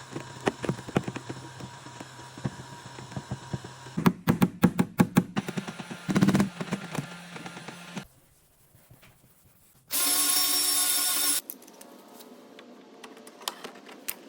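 Rapid series of sharp taps and knocks over a steady low hum, a pause, then a loud steady tone with several pitches lasting about a second and a half, followed by a few faint clicks.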